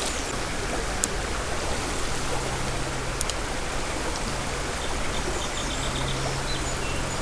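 Steady rush of flowing creek water, with a couple of light clicks.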